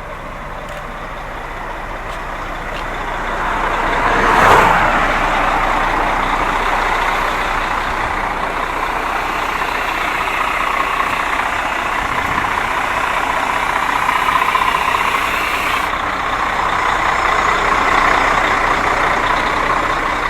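Road traffic: a vehicle passes close by with a rising and falling rush of noise about four and a half seconds in, followed by the steady noise of traffic on the highway.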